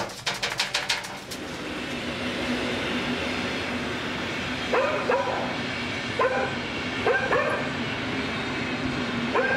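A dog barking in short, rising yaps: a pair about halfway through, then a single and a pair, and another pair at the end, over steady background noise with a low hum. A quick rattle of clicks opens it.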